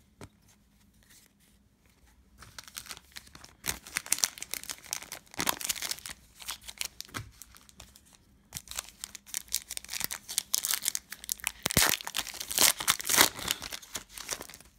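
Plastic trading-card pack wrapper crinkling and tearing as it is handled and opened by hand, in two spells of dense crackling.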